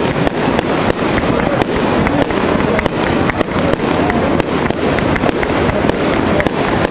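Fireworks display: rapid pops and crackles, several a second, over a steady hissing rush from ground-launched comets and fountains.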